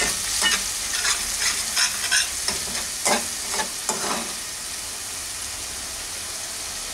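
Onion and ginger-garlic-green chilli paste frying in oil in a metal kadai, sautéed to drive off the raw ginger-garlic smell. A slotted metal spatula scrapes and stirs against the pan in quick strokes for about the first four seconds, then only the steady sizzle goes on.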